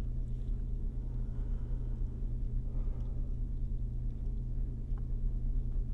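Steady low background hum, with a faint click about five seconds in as wire strippers close on a thin speaker wire.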